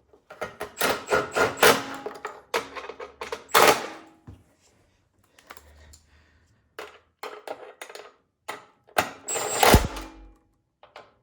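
Hand tools and metal parts clicking and knocking irregularly as parts are refitted to a snowblower engine during reassembly, with a quieter stretch in the middle and a busy burst of clatter near the end.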